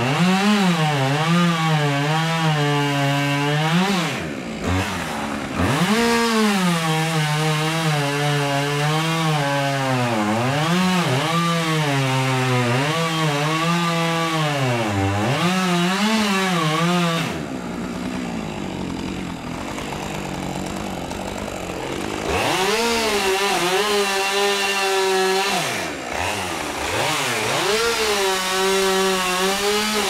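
Two-stroke Husqvarna chainsaw cutting into a tree stump, its engine pitch dipping and rising as the chain bites into the wood. About halfway through the engine falls back to a lower, rougher running for several seconds, then revs back up and cuts again.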